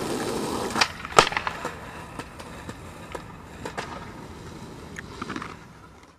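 Skateboard rolling on asphalt, then two sharp clacks of the board about a second in, the second the louder, then lighter clicks over quieter rolling that fades out at the end.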